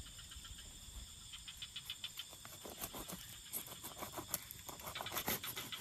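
Crickets chirring steadily in a high thin tone, overlaid from about a second and a half in by a dense run of irregular close-by clicks, taps and small scrapes, the loudest just after four seconds and again after five.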